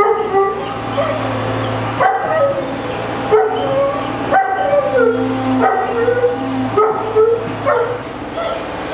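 Five-week-old Fila Brasileiro puppies yipping and whining: many short, high calls that rise and fall in pitch, one after another. A steady low hum runs underneath.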